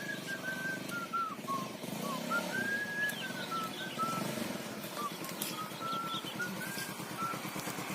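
An engine running steadily at low revs, with a bird singing in short sliding chirps over it.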